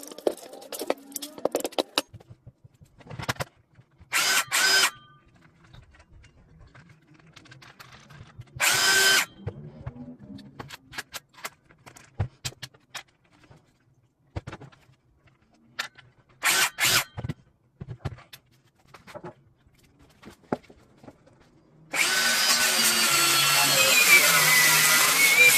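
DeWalt 20V cordless drill running in short bursts, about four seconds in, about nine seconds in and as two quick pulses past the middle, then a longer run near the end whose whine drops in pitch. Light clicks and knocks between the runs.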